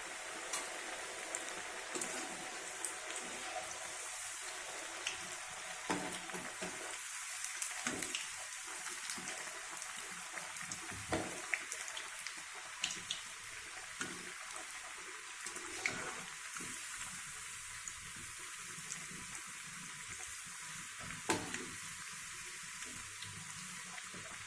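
Cabbage vadas deep-frying in hot oil in a kadai: a steady sizzle with many small, scattered crackling pops.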